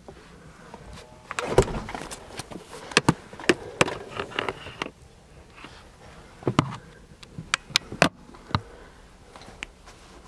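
Irregular sharp knocks and clicks with rustling, a dozen or so over several seconds, the loudest about one and a half seconds in.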